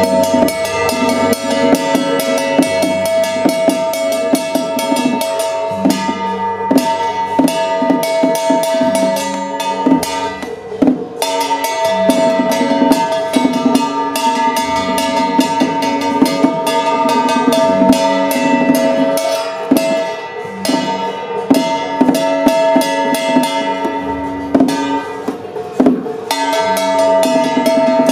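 Taoist ritual music: a melody of long held notes over drums and percussion, the notes shifting in pitch every few seconds.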